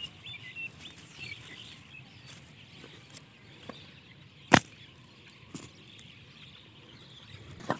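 Rustling of grass and footsteps as someone moves through tall grass, with a few sharp clicks, the loudest about halfway through. Faint chirping in the first second or so.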